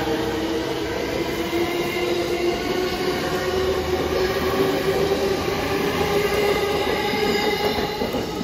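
JR East E231-500 series electric commuter train pulling out past the platform: steady wheel-on-rail running noise with a steady motor whine.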